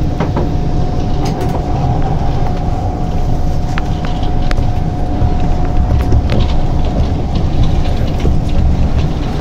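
Inside an SMRT C151 train car running on the North South Line: steady low rumble of the wheels on the track. A thin steady whine sits above it and fades out after about six seconds, with a few sharp clicks.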